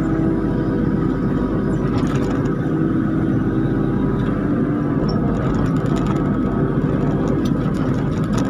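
Kubota KX91-3 mini excavator's diesel engine and hydraulics running steadily while the boom and log grapple work, heard from the operator's seat. A few light clicks come through, about two seconds in and again near the end.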